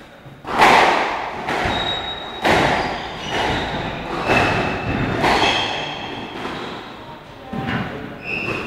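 Squash ball struck by rackets and hitting the court walls during a rally: sharp smacks about once a second, each echoing in the court, with a gap of about two seconds before two more near the end. Short high squeaks of court shoes on the wooden floor sound between the shots.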